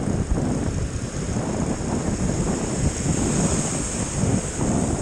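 Sea surf breaking and washing up a shallow sandy beach, with wind buffeting the microphone in a steady low rumble.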